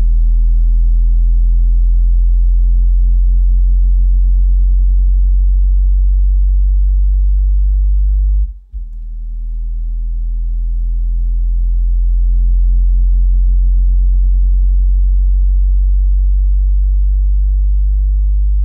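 A single 12-inch car subwoofer playing a very loud low sine-sweep test tone around 40 to 46 Hz, heard inside the vehicle's cabin, with a buzz of overtones above the bass. It cuts out briefly about eight and a half seconds in, then comes back and builds up again. The meter puts its peak at about 130.6 dB at 46 Hz.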